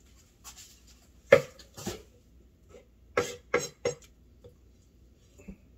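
Kitchen knife cutting through a mango and knocking on a wooden cutting board: five sharp knocks, the last three in quick succession, with a few lighter taps between.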